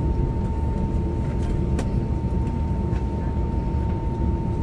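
Steady cabin hum inside a parked Airbus A321neo airliner: a low rumble with a constant high thin whine over it. A single sharp click sounds a little under two seconds in.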